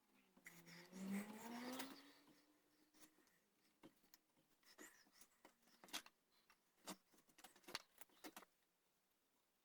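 Scattered light clicks and taps of hand carving tools working the wooden gunstock, irregularly spaced. In the first three seconds they are preceded by a faint droning tone that dips and then rises in pitch.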